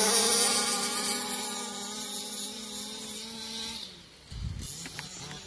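Two-stroke petrol engines of 1/5-scale RC cars at full throttle in a drag race, holding a steady, high buzzing whine that grows fainter as the cars pull away and fades out about four seconds in. A brief low thump follows.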